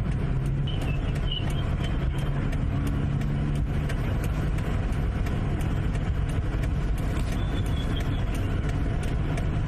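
Car engine idling steadily, a low hum under outdoor street noise, with a few faint high chirps.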